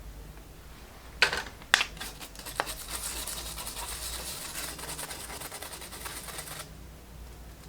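A few sharp taps, then steady scratchy scrubbing on a laptop circuit board being cleaned with petrol, lasting about four seconds and stopping abruptly.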